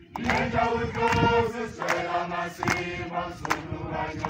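Crowd of protesters singing a protest song together, several voices holding long notes in harmony, with a few sharp claps or shouts between phrases.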